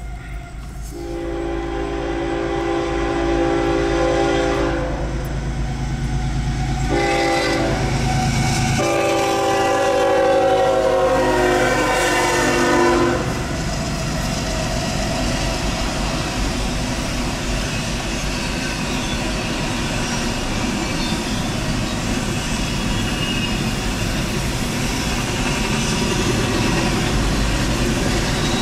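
CSX freight locomotive horn sounding for the grade crossing: a long blast, a short one, then another long one. Then the double-stack intermodal train passes with the steady noise of the cars rolling over the rails.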